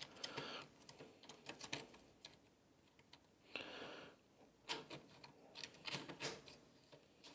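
Faint scattered clicks and scrapes of a small screwdriver prying a corroded metal battery contact out of a plastic remote-control battery compartment, with a short scrape about three and a half seconds in and a few sharper clicks soon after.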